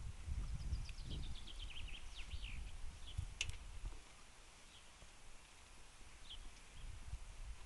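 Small birds singing, with quick runs of short high chirps about a second in, over a low rumble on the microphone that fades after about four seconds.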